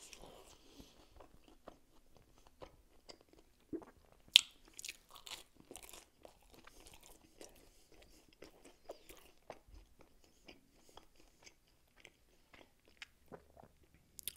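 A person chewing and crunching crispy food up close: a run of small crunches with one sharp, louder crunch about four seconds in.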